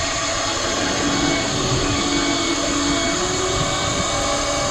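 Electric deep-drop fishing reel winding in line with its rod tip bent under load, a steady motor whine over a hiss.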